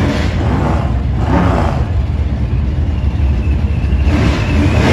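Gasser hot rod's engine running loud, with a few short surges that fit revving: near the start, about a second and a half in, and near the end.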